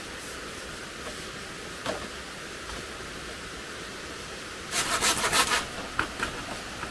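Steady rushing of a forest stream. A single knock comes about two seconds in, and a short burst of scraping and clattering comes about five seconds in.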